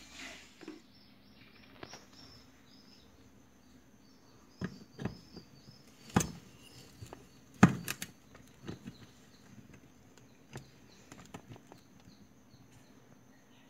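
Scattered clicks and knocks as a clear glass light bulb is handled and fitted into its holder inside a cardboard box, the loudest knock about halfway through. Behind them runs a faint, evenly repeating high chirping.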